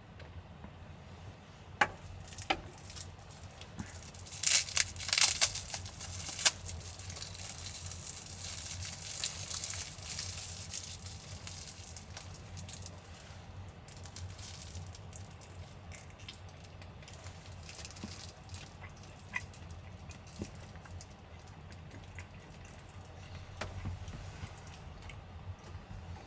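Plastic or paper packaging being crinkled and torn, loudest in a crackling spell about five seconds in, with scattered clicks and small knocks from handling things. A low steady hum runs underneath.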